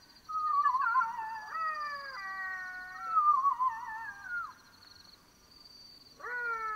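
Black-backed jackals howling in chorus: several overlapping wailing howls that waver and fall in pitch, dying away about two-thirds of the way through, then a fresh howl sliding up in near the end. A steady high trill runs underneath.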